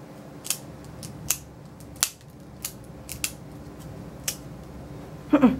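Plier-style dog nail clippers snipping through a dog's nails, a sharp click about once a second. A short voice sound comes in right at the end.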